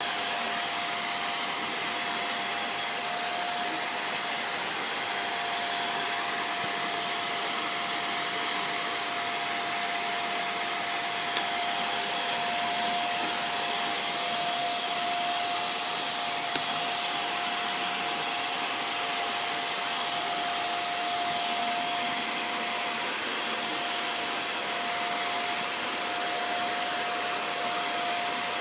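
Vacuum cleaner running steadily: an even rushing noise with a constant tone, broken by two faint knocks a few seconds apart near the middle.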